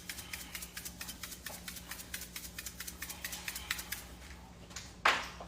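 Pepper shaker shaken over the pan: a quick run of light rattling clicks, several a second, dying away about four seconds in. A short, louder noise follows about five seconds in.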